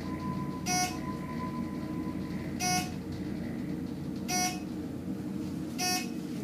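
ThyssenKrupp traction elevator car travelling upward with a steady low running hum, and a short electronic beep four times, about every 1.7 seconds, as the car passes each floor.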